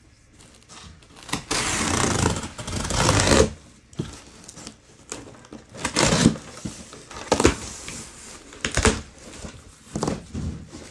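A cardboard shipping box being opened by hand. About two seconds in there is a long rip as packing tape is pulled off, followed by several short, sharp rips and cardboard scrapes roughly a second apart as the flaps are worked open.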